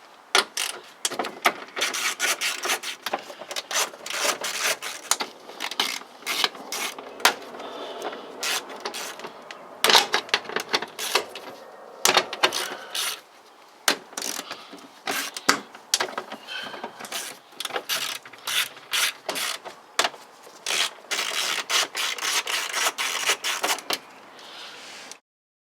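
Ratchet wrench clicking in quick runs with short pauses as the bolts around a car door's window regulator are undone.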